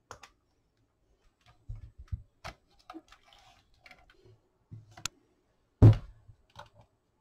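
Scattered clicks, taps and knocks of test leads, meters and battery packs being handled on a workbench. A sharp click comes about five seconds in, and the loudest sound, a heavier thump, follows just before six seconds as a 56-volt battery pack is set down.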